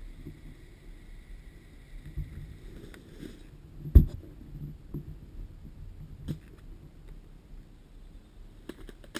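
Low rustling and scattered knocks of movement close to the microphone, with one much louder knock about four seconds in. A faint steady high tone sounds during the first few seconds.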